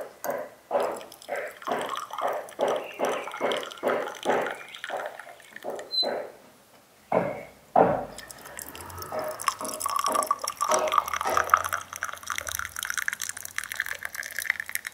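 Water from a samovar's tap running into a glass tea glass. At first it falls in drips, about three a second. A single knock comes about halfway. Then a steady stream of hot water fills the glass, its pitch rising as the glass fills.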